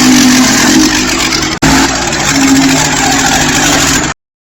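Portable bandsaw mill running, its gas engine at speed with the band blade sawing a beech log, a loud steady engine tone under dense sawing noise. It breaks off abruptly and resumes about a second and a half in, then cuts off suddenly near the end.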